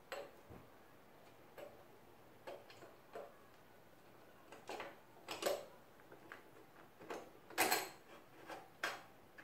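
Irregular light clicks and taps of a steel axle bolt and spacers being handled and worked into an electric scooter's wheel hub, about a dozen, the loudest near the end.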